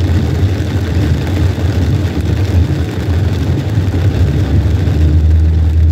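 Road noise inside a car's cabin while driving on a wet highway: a steady low rumble of engine and tyres, with the hiss of tyres on wet pavement.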